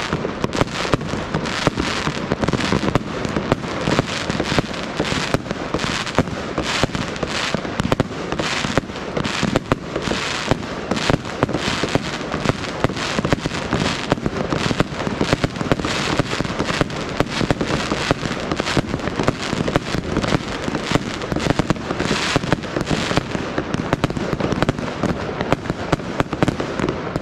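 Many consumer fireworks going off at once: a dense, unbroken barrage of bangs and crackling explosions, several a second.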